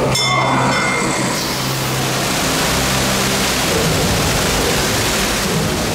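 Water curtain pouring down in front of a ride boat: a steady rush of falling water that comes in about a second and a half in.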